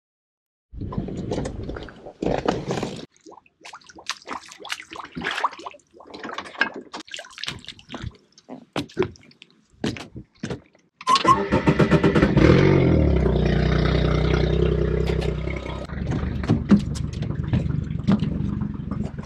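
Scattered knocks and rustles of gear being handled, then about eleven seconds in a boat engine starts, its pitch shifting briefly before it settles into a steady idle.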